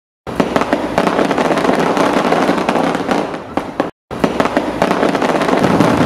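Fireworks going off in a dense barrage of sharp pops and bangs. The sound cuts out completely for a moment near the middle, then resumes.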